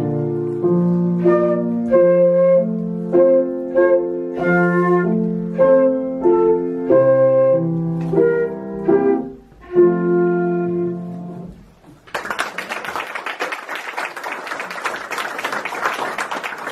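Child's curved-headjoint concert flute playing a melody with piano accompaniment, the piece closing on a held note about ten to eleven seconds in. Applause follows about twelve seconds in.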